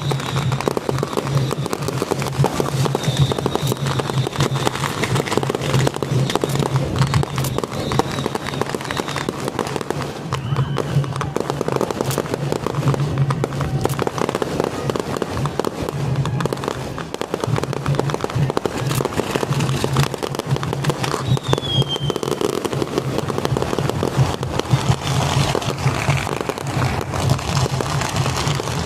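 Strings of firecrackers going off in a dense, continuous crackle of rapid bangs, with no let-up.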